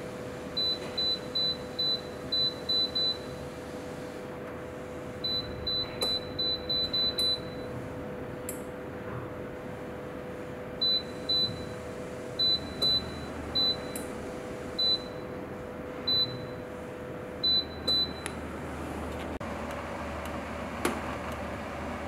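Touch-control panel of a glass-panel bathroom heater beeping as a finger taps its buttons: short, identical high beeps in quick runs of several, three runs in all, over a steady hum.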